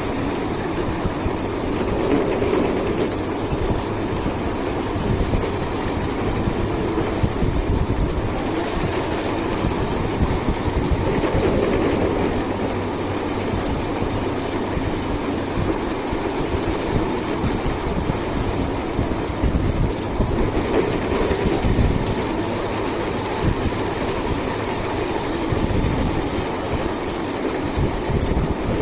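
Metal lathe running steadily while cutting a screw thread, its hum swelling about every nine seconds.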